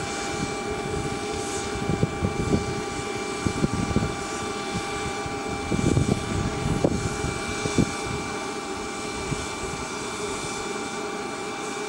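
Steady whine of a small jet turbine on a parked Cessna Citation Latitude, several fixed pitches held level, over an uneven low rumble that swells briefly a few times.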